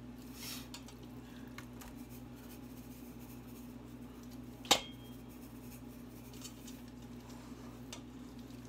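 Quiet handling of raw meat in a stainless steel pot as seasoning is shaken on from a metal shaker, with one sharp click about halfway through, over a steady low hum.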